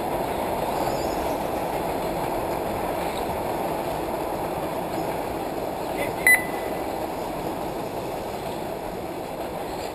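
One short electronic beep about six seconds in, typical of an RC race's lap-counting system registering a car crossing the line. It sounds over steady background noise from the track.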